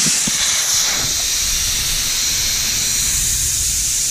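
Air hissing steadily out of a car tire's open valve stem with the valve core removed: the tire deflating.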